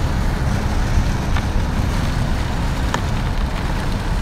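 Steady low road and engine rumble inside a moving car, with a couple of faint ticks.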